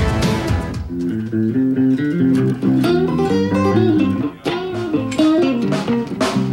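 The end of a short music sting cuts off about a second in; then an electric guitar plays a melodic run of notes on its own.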